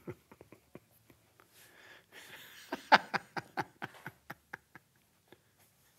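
Pencil drawing on a spiral sketchpad: a run of short scratchy strokes and light taps of the graphite on the paper, busiest and loudest about three seconds in.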